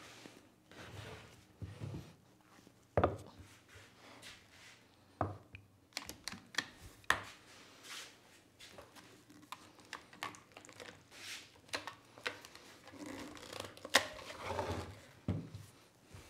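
Scattered knocks and clicks as a glued-up stack of wooden layers is squared up on a workbench, then bar clamps are fitted and tightened around it.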